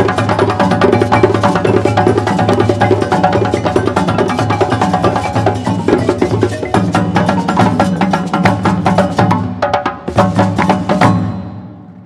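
West African percussion ensemble of djembes and dunun drums with a balafon, playing a fast, driving rhythm. Near the end the ensemble plays a few final strokes and stops together.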